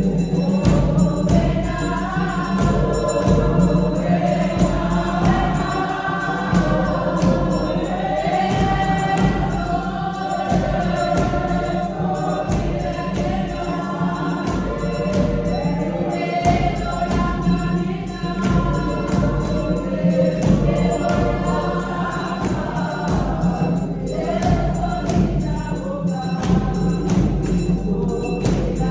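A choir singing gospel music over a steady beat.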